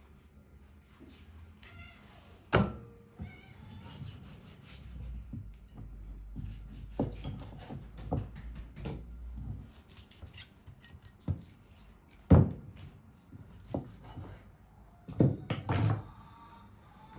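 Large kitchen knife slicing through raw beef and knocking down onto a wooden chopping board: a series of irregular sharp knocks, the loudest a little past the middle. An animal calls faintly in the background.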